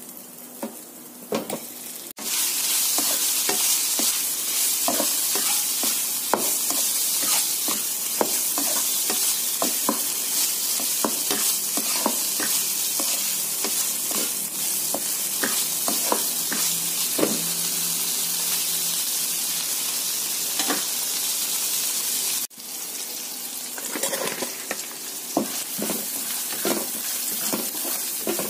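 Chopped ingredients sizzling in hot oil in a non-stick wok while a spatula stirs and scrapes them in frequent short strokes. The sizzle suddenly gets much louder about two seconds in and drops back a few seconds before the end.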